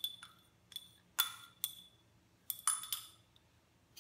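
A thin metal stirrer clinking against a small glass measuring beaker and a glass mixing bowl, with about eight light, ringing clinks at irregular intervals.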